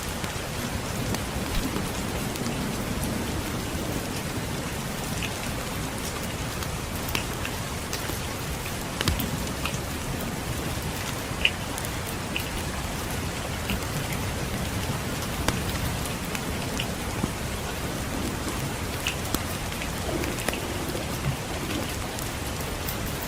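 Steady rain with scattered sharp pops and crackles of a wood fire, over a low rumble of distant thunder.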